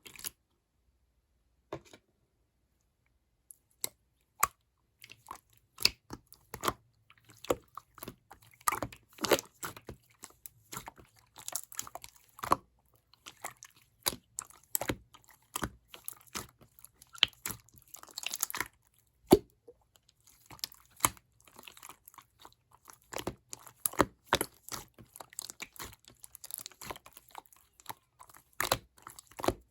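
Gold pearl slime being worked by hand: an irregular run of sticky clicks and crackling pops, a few scattered at first, then coming thick and fast from about five seconds in.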